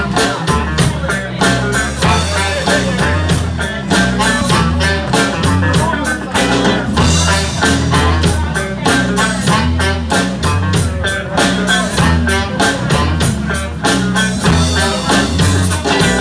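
Live band playing an instrumental intro: electric guitar and drums over a steady beat, loud through a club PA and heard from within the crowd.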